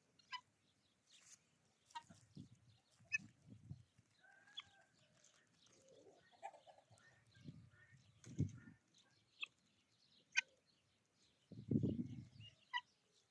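Domestic fowl, a rooster and guinea fowl, giving scattered short sharp calls and a few softer clucking notes, with several dull low thumps; the loudest thump comes near the end.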